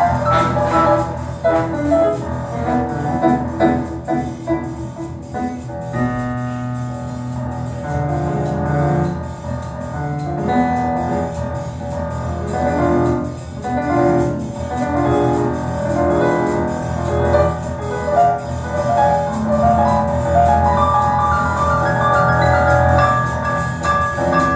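Live swing band music, with piano to the fore over an upright double bass.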